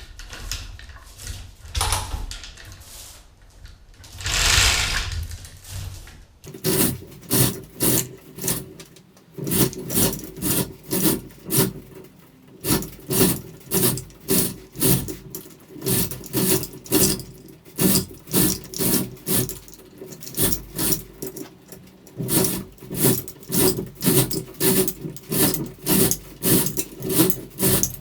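A few scattered knocks, then from about six seconds in a long run of repeated rasping strokes, about two to three a second, with short pauses.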